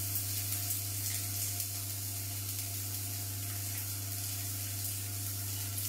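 Cubes of tofu frying in a little oil in a non-stick pan, a steady sizzle, over a constant low hum.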